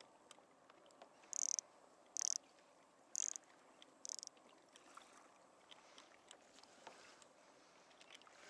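Fishing reel buzzing in four short high-pitched bursts about a second apart as a fish pulls line off after taking the live bait.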